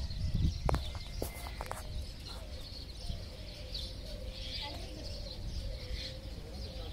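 Outdoor ambience: faint bird chirps over a steady low rumble of wind on the microphone, with a few light clicks in the first couple of seconds.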